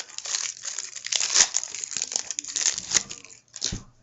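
Crinkling and tearing of a trading-card pack's wrapper as it is torn open and handled, stopping with a soft thump near the end.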